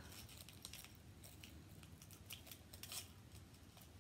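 Near silence with faint, scattered small clicks and light handling noise as a boxed necklace and its packaging are handled.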